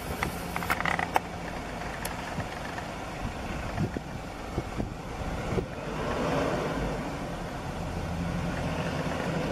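Twin jet engines of an Airbus A320-family airliner climbing away after takeoff: a distant, steady rumble that swells slightly about six seconds in. A few light clicks sound in the first second.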